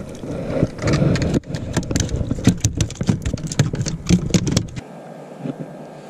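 Rapid, irregular knocks, rattles and thumps while a spotted seatrout is landed and handled aboard a small fishing boat, the fish thrashing. About five seconds in the clatter stops abruptly and only a faint steady hiss remains.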